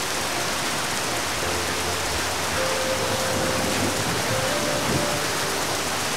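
Steady heavy rain falling.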